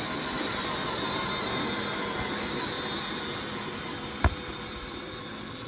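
A volleyball struck once by a player's hands or arms about four seconds in, a single sharp smack, over steady outdoor background noise.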